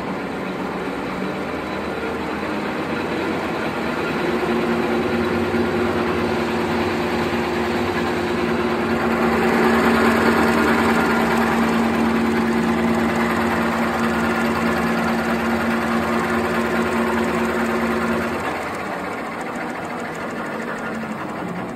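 Napkin paper folding and cutting machine running at speed: a steady mechanical whirr and rattle, with a steady drone that joins about four seconds in and stops near eighteen seconds.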